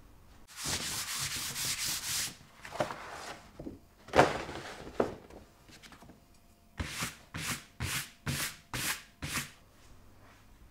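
A hand-held pad rubbing across a large sheet of paper on a printing press bed. A long stretch of rubbing comes first, then rustling paper handling with one sharp knock, then about seven quick rubbing strokes near the end.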